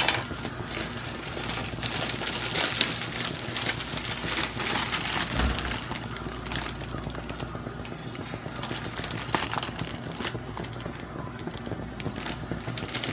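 Plastic bag of dried noodles crinkling and rustling as it is handled, with many small crackles, over a steady low hum.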